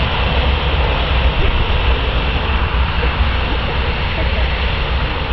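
The engines of a twin-engine jet airliner running, heard from behind the aircraft: a loud, steady rushing noise with a heavy low rumble.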